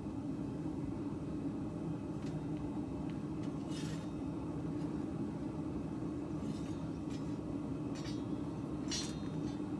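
Steady low mechanical hum of workshop machinery, with a few light metallic clinks.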